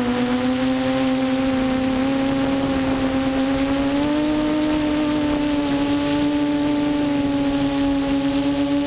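QAV400 quadcopter's 1100 kV brushless motors and propellers humming steadily in flight, heard from the onboard GoPro, with the pitch stepping up slightly about four seconds in.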